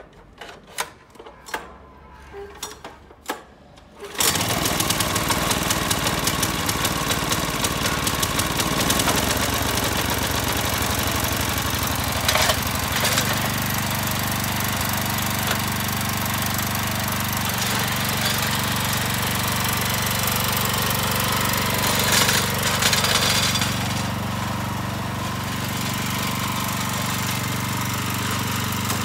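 A few sharp clicks, then about four seconds in the Robin 6 hp engine of a walk-behind tiller starts and runs steadily, its note settling about thirteen seconds in as the tiller moves off.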